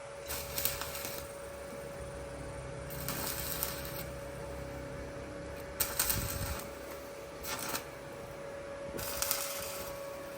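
Stick (arc) welding on the steel of a chicken cage: the arc crackles and sputters in about five short runs, each under about a second, with pauses between, over a steady hum.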